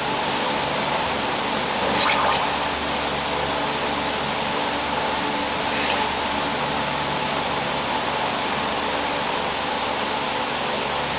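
UCO stormproof match struck about two seconds in and flaring, with a second short burst about six seconds in. A steady rush of fan-blown wind and running water goes on throughout.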